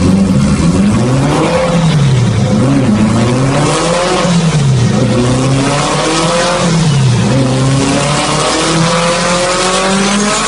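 A K-swapped car's Honda K-series four-cylinder engine being revved, its pitch rising and falling several times.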